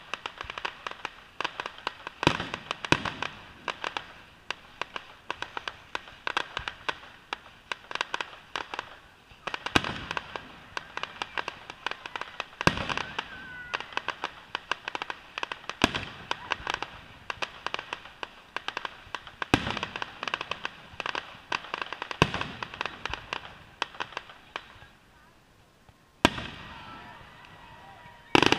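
Fireworks display: dense, rapid crackling with a deeper boom every few seconds. The crackle thins out for a moment near the end, then a loud burst goes off.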